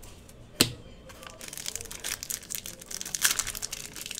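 A single sharp snap about half a second in, then the crinkling and tearing of a foil trading-card pack wrapper (2019 Panini Score football) being pulled open, growing busier toward the end.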